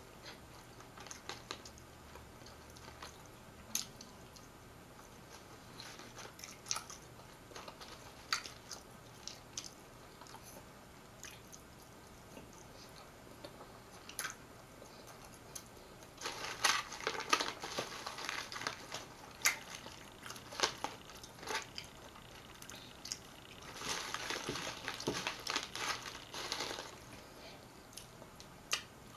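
Close-miked eating sounds of a person chewing French fries: scattered wet mouth clicks and smacks, with two longer stretches of crackling a little past halfway and again later.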